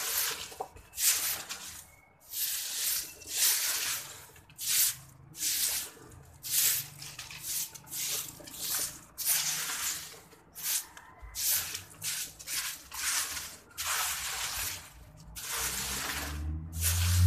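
Broom bristles swishing across a concrete floor and dry fallen leaves, in short strokes at about one to two a second. Near the end a low hum rises in pitch and becomes the loudest sound.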